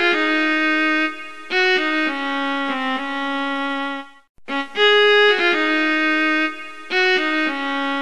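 Background music: a solo melody of held notes on a bowed string instrument like a violin. The phrase stops briefly about four seconds in and then repeats as a loop.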